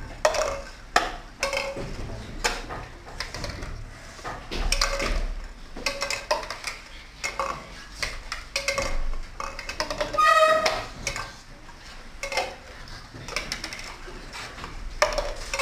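Plastic cups being picked up and set down on a tabletop game board, a run of light irregular clicks and clatters.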